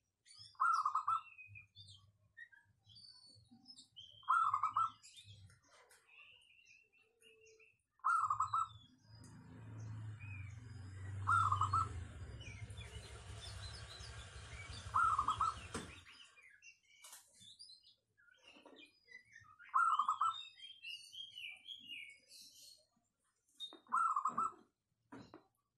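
Zebra dove (perkutut) cooing its short song phrase over and over, seven times at a steady pace of about one every four seconds, with fainter higher chirps from other birds between. A steady low rumble runs through the middle and cuts off suddenly.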